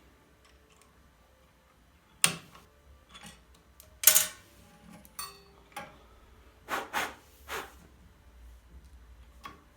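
Hard objects being handled and set down on a surface: a scattered series of about eight sharp clicks and knocks, the loudest a little after two seconds and about four seconds in.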